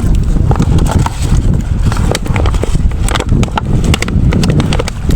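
Heavy wind rumble on the microphone, with a string of irregular knocks and clicks.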